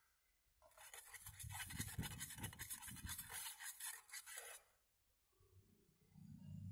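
Gritty scraping of wet concrete being wiped by hand across the face of a flower-block mold, a dense run of rapid strokes lasting about four seconds and then stopping.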